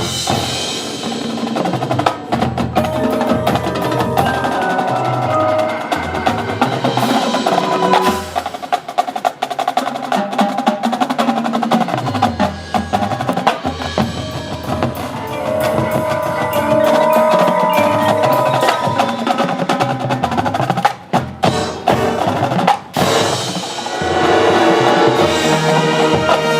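High school marching band playing its competition show: percussion strokes over held wind chords, the ensemble growing fuller near the end.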